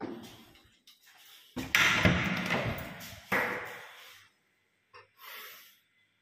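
A door banging twice, about a second and a half apart, each bang fading over about a second, followed by a couple of faint knocks near the end.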